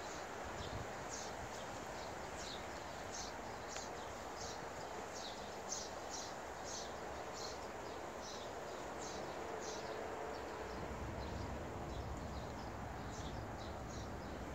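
A small bird chirping over and over, short high chirps about two a second, over a steady outdoor background hiss.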